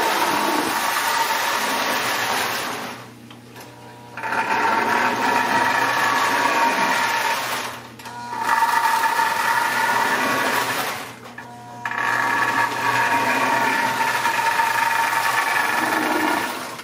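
Marx tin toy train running on the layout track: a steady whine from its electric motor and gears with rattling wheels. The sound drops away briefly three times, about three seconds in, about eight seconds in and about eleven seconds in.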